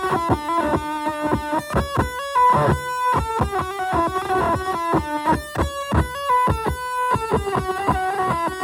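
Electric guitar played through a fuzz pedal based on the Devi Ever Hyperion: a quick run of picked single notes, several a second, with a distorted tone.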